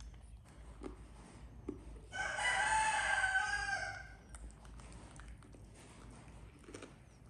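A single loud, drawn-out animal call lasting about two seconds, starting about two seconds in, with a few faint clicks of food handling around it.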